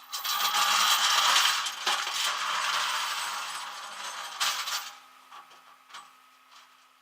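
Loud clattering and rattling of small hard objects for about five seconds, then a few scattered clicks, over a faint steady hum.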